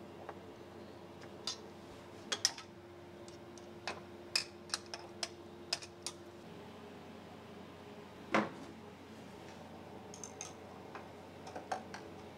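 Scattered light metallic clicks and taps as hex drivers and a hex key work the socket-head bolts of a steel lathe-tool fixture on a mill table, with one louder knock about eight seconds in. A faint steady hum underneath stops about halfway through.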